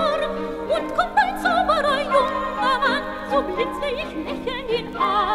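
Operetta recording: a melody sung with wide vibrato over a sustained orchestral accompaniment.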